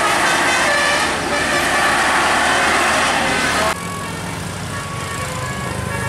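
Multi-tone telolet vehicle horn playing a stepping tune, note after note, over the loud noise of a diesel truck passing close. About two-thirds of the way through the loud noise drops away suddenly, and the horn notes go on over a lower engine hum that grows.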